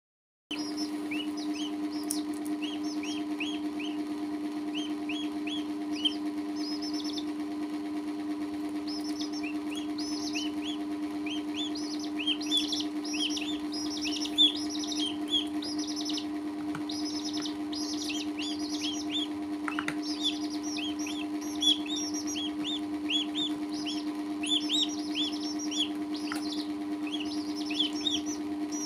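Chicks and a duckling peeping: runs of short, high, downward-sliding peeps that grow busier after the first ten seconds, over a steady low hum.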